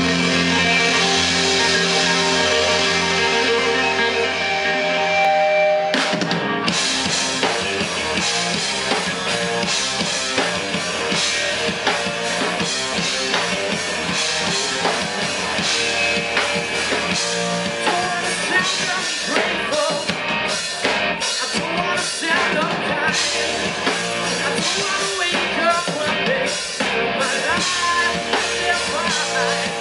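Live rock band playing: electric guitars hold ringing chords for about six seconds, then the drums crash in and the full band drives on with guitars, bass and drum kit.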